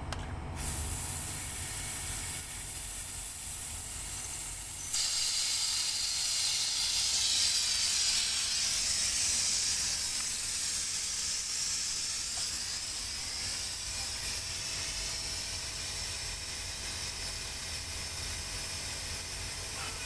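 R410A refrigerant hissing out through the manifold gauge set's hose as the air conditioner's remaining charge is vented. The hiss starts about half a second in and grows louder and fuller about five seconds in.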